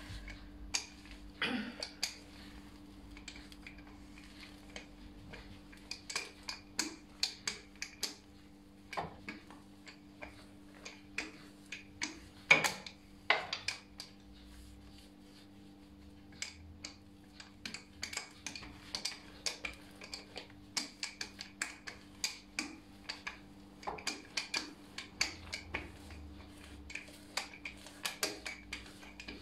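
Wooden rolling pin rolling out dough on a granite countertop: irregular light clicks and knocks, at times several a second, with one sharper knock about halfway through, over a faint steady hum.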